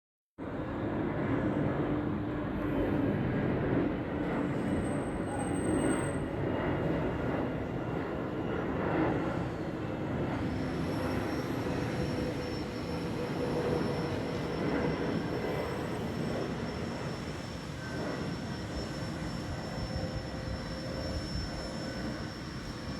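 Jet airliner's engines running: a steady rumble, joined about halfway through by a high, steady whine.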